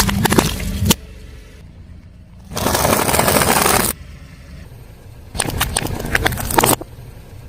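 Car tyre crushing crunchy objects: two bursts of dense crackling and snapping, with a steady hiss lasting about a second between them, over a low rumble from the car.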